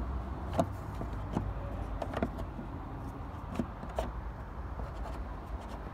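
The plastic airbox lid of a Dodge Challenger SRT-8 is being pressed down and clipped shut over a new paper air filter. Five or six short, sharp plastic clicks and knocks come at irregular intervals over a low, steady rumble.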